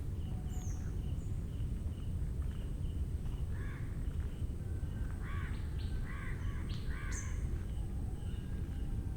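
Birds calling in a mangrove forest: about four short, harsh calls come in the middle. A faint high chirp repeats every half second or so, over a steady low rumble.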